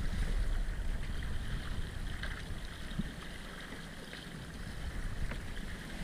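Water rushing and gurgling past the stern of a sailing yacht under windvane steering, with wind rumbling on the microphone that eases after about three seconds.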